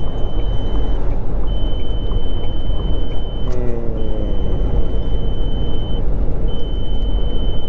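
Heavy truck cab at highway speed: steady diesel engine and road rumble. About three and a half seconds in, the engine note falls as the truck slows onto the exit ramp. A thin high beep sounds again and again in long pulses with short gaps.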